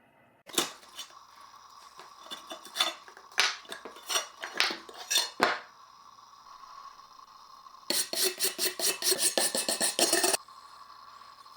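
Sharp metal clinks and clatters, spaced irregularly over the first five seconds or so. After a short lull, a fast run of scraping strokes, about ten a second, goes on for some two and a half seconds and stops abruptly.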